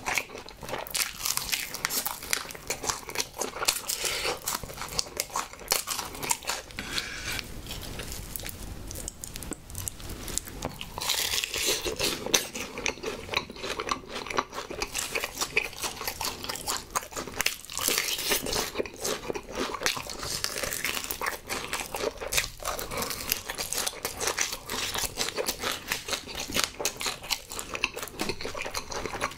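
Close-miked chewing and biting of a honey chicken drumstick: a dense, continuous run of quick wet clicks and crackles from the mouth.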